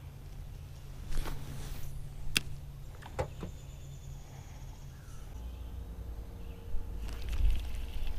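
Spinning rod and reel being handled while fishing: a swish about a second in, a few sharp clicks, and some rustling near the end, over a steady low rumble.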